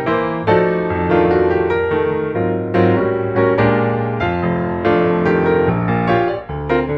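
Background piano music: notes and chords struck in an even, unhurried rhythm, each one fading away before the next.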